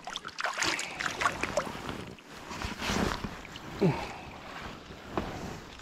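Water splashing and slopping at the surface of a river as a small brown trout is landed by hand, with irregular knocks and handling noises. A brief low falling sound comes about two-thirds of the way through.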